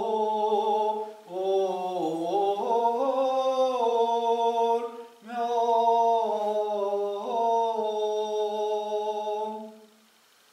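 A priest singing a slow liturgical chant solo and unaccompanied, holding long notes that step up and down. He breaks for breath about a second in and again about five seconds in, and the singing ends near the end.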